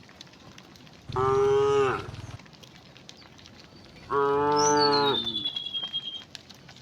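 Cows mooing twice: a short moo about a second in, then a longer moo of about a second a few seconds later.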